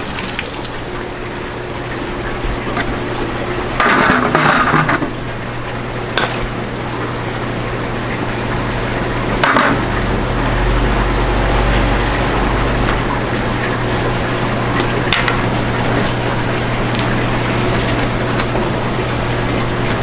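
Steady splashing and bubbling of water in a live-fish tank over a low pump hum, with water running off a dip net. A few short slaps and knocks as a large yellowtail flaps in the net.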